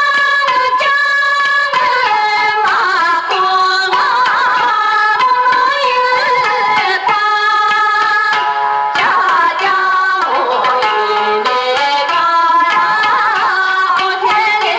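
Background music: an ornamented, wavering melody over occasional percussion strokes.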